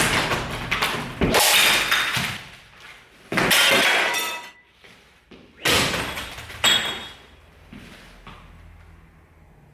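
A series of five loud crashing, breaking impacts about a second or two apart, some with a brief bright ringing, dying away to a low hum near the end.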